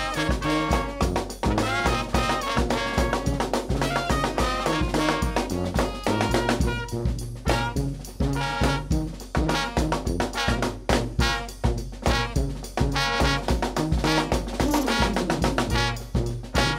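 New Orleans brass band playing: sousaphone bass line under trumpet, trombone and alto saxophone, driven by a steady beat on bass drum, cymbal and snare.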